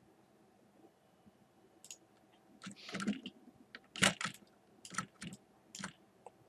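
Computer mouse and keyboard clicks: a handful of sharp clicks, with a short clatter of keys about three seconds in and the loudest click about a second later.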